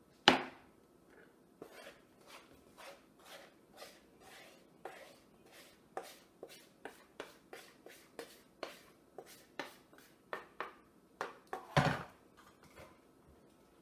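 A series of light knocks and taps of a kitchen utensil or container against a mixing bowl, about two a second, with a louder knock just after the start and another near the end.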